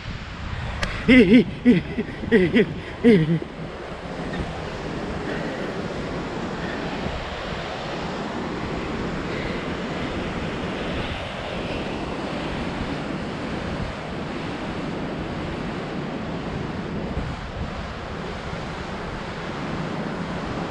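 Steady rush of a waterfall and white-water mountain river, with wind on the microphone. About a second in, a voice sings a few quick notes for about two seconds.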